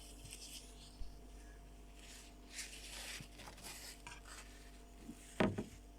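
Raspy, rattling breathing in irregular breaths, the crackles of sick lungs. A single thump about five and a half seconds in.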